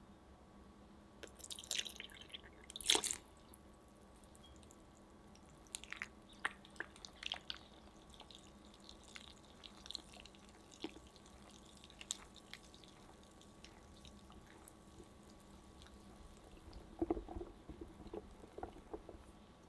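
Silicone-coated hand whisk stirring thick cake batter in a glass bowl: soft wet squelching, with scattered light taps of the whisk against the bowl, the loudest about three seconds in and a small cluster near the end.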